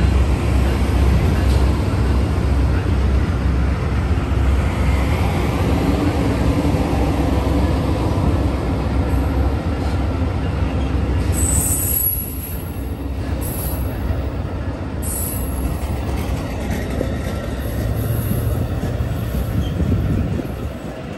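Amtrak Superliner bilevel passenger cars rolling past as the Coast Starlight departs, with a steady rumble of wheels on the rails. Several brief, high-pitched wheel squeals come in the second half. The rumble drops away near the end as the last car passes.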